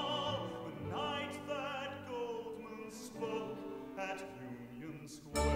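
Musical-theatre music: an orchestra with long held, wavering sung notes, quieting toward the end. A louder passage with heavy bass starts abruptly just before the end.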